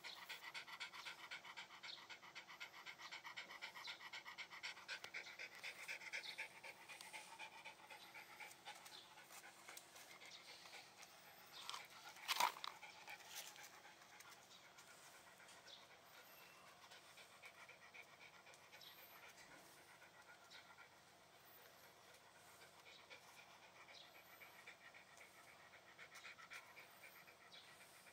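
Shiba Inu panting in quick, even breaths, louder over the first six seconds and fainter after. A brief sharp sound stands out about twelve seconds in.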